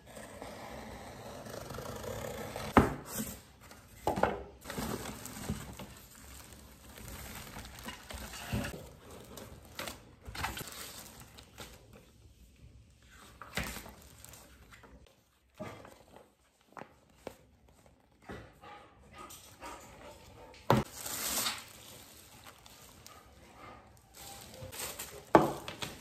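Unboxing noises: cardboard box handling and clear plastic wrapping rustling and crinkling around a handheld vacuum cleaner. Several sharp knocks come in between as the box and the vacuum are set down on the table.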